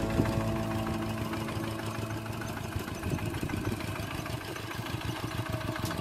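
Kubota hand tractor's single-cylinder diesel engine chugging steadily under load as it pulls through the ploughed soil.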